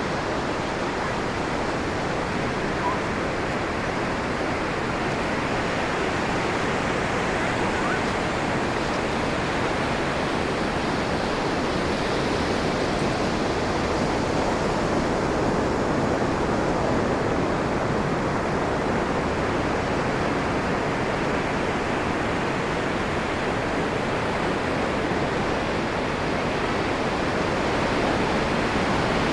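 Ocean surf breaking and washing up the beach, a steady rushing with slow, slight swells in loudness.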